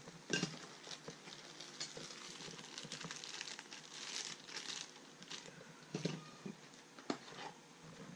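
Packaging crinkling and rustling while the contents of a boxed set of oscillating multi-tool blades and sandpaper sheets are handled, with a few small clicks and knocks.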